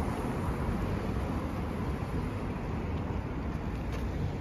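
Steady outdoor road-traffic noise, mostly a low rumble with no distinct events.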